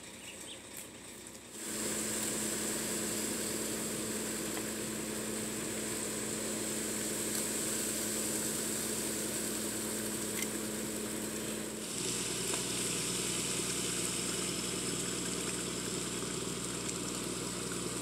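Concrete mixer truck's diesel engine running steadily as it turns the drum and discharges concrete down the chute. The hum comes in loud about two seconds in, and its note shifts lower about twelve seconds in.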